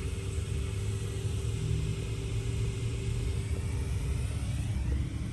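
Vintage BDP central air conditioner condensing unit running: compressor and condenser fan giving a steady low hum with a few constant tones above it.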